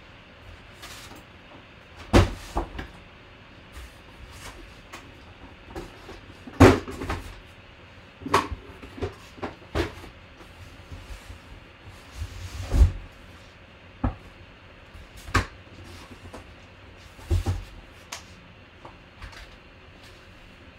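Cardboard boxes being pushed and shifted about, making irregular thumps and knocks, about eight louder ones spaced a second or more apart.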